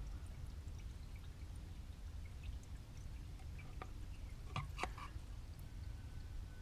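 Engine flush being poured from its bottle into the engine's oil filler, a faint liquid pour, with a few light clicks a little past the middle.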